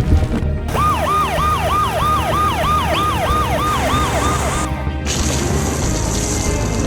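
Emergency vehicle siren sound effect with a fast yelp, each cycle a quick sweep down and back up, about three a second. It starts just under a second in and cuts off after about four seconds, over background music.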